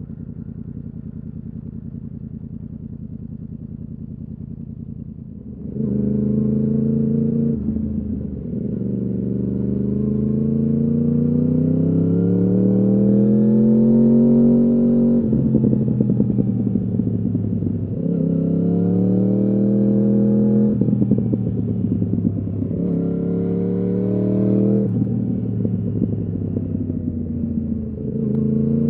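2015 Yamaha R1's crossplane inline-four through a full Akrapovič exhaust, running steadily and quieter, then opened up about six seconds in. The pitch then climbs hard and drops suddenly again and again as it accelerates through quickshifted upshifts.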